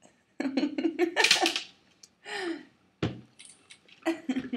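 Wordless vocal sounds, a short laugh-like burst and then a brief falling vocal sound, followed about three seconds in by a sharp knock.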